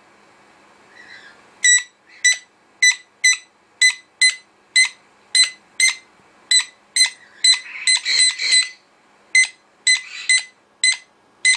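Jenday conure giving a long run of short, high, beep-like calls, about two a second, with a harsher squawk about eight seconds in.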